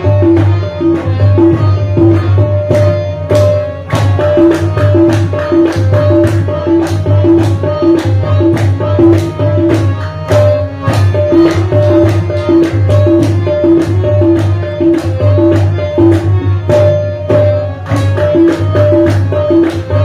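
Qawwali instrumental: a harmonium repeating a short melodic phrase over a fast, steady tabla rhythm with deep bass strokes, without singing.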